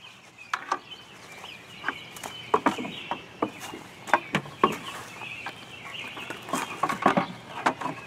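Scattered knocks, clicks and footsteps as canoe paddles are handled against a wooden two-by-four shelf, busiest in the second half, with birds calling steadily in the background.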